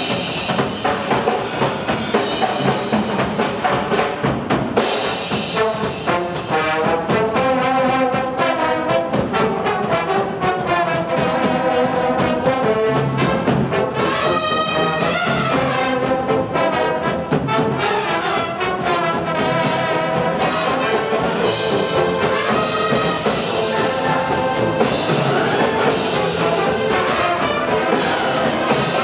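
High school marching band playing live: trumpets and trombones carry the tune over drums keeping a steady beat.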